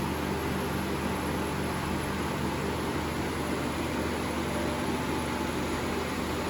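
Bottero Variant 810BCS vertical glass edging machine running steadily: an even hiss with a constant low motor hum underneath.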